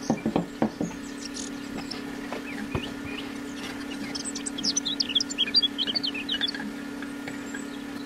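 Copper wire handled on a wooden block: a few sharp knocks in the first second, then a quick run of high squeaks about halfway through as the wire is drawn through a hole in the wood, over a steady low hum.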